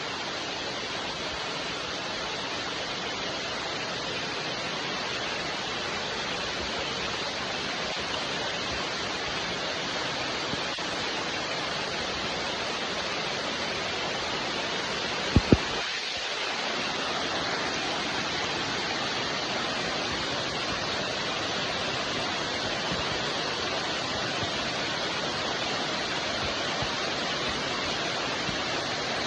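Steady, even hiss of rain falling. Two short clicks sound close together about halfway through.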